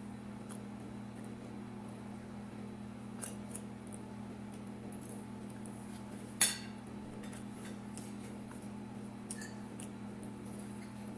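Quiet eating sounds: chewing and faint small clicks as fries are picked from a ceramic plate, with one sharp tap against the plate about six seconds in. A steady low hum runs underneath.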